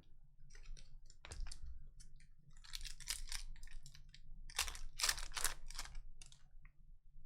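Trading cards being handled and slid against one another as a pack is gone through: a run of short scraping and clicking strokes, loudest in two clusters about three and five seconds in.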